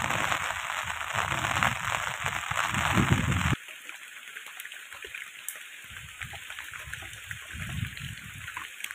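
Rain falling steadily, with a low, irregular rumble beneath. About three and a half seconds in it drops suddenly to a quieter, lighter patter with scattered drop ticks.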